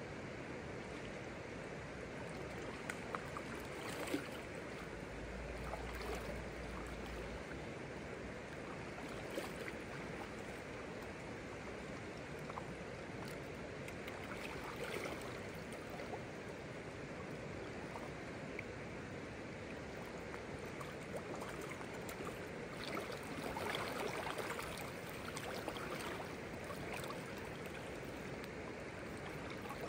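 Shallow, rocky river running: a steady rush of flowing water, with a few light splashes and ticks.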